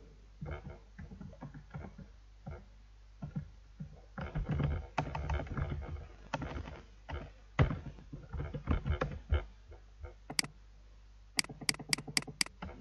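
Computer keyboard typing in irregular bursts of keystrokes, then a single sharp mouse click, and near the end a quick run of about five mouse clicks.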